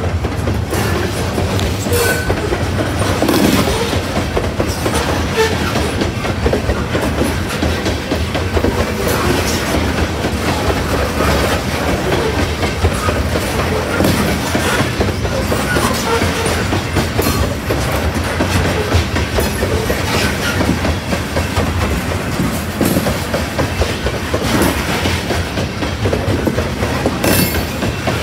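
Loaded coal hopper cars rolling past close by: a loud, steady rumble of steel wheels on rail, with the clickety-clack of wheels over rail joints.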